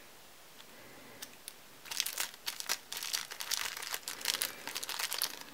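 Clear plastic bag crinkling as fingers handle a small metal charm sealed inside it. A couple of quiet seconds with a few faint clicks, then close, continuous crackling from about two seconds in.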